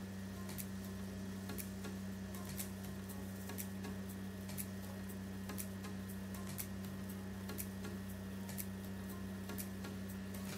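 Regular ticks about once a second over a steady low hum.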